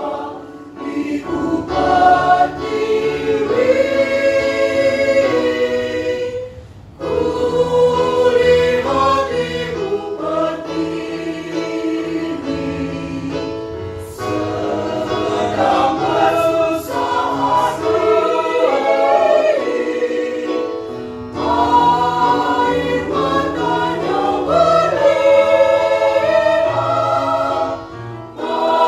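Mixed choir of women and men singing in parts under a conductor, with brief pauses between phrases about seven and twenty-one seconds in.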